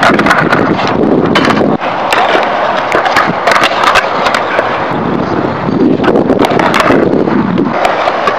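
Skateboard wheels rolling on concrete, a steady rough rumble, with repeated sharp wooden clacks as boards are popped, flipped and landed.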